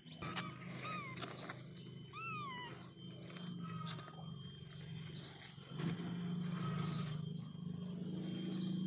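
A domestic kitten mewing: two clear high calls that rise and fall, about one and two seconds in, then a few fainter short calls. A steady low hum runs underneath and grows louder in the second half.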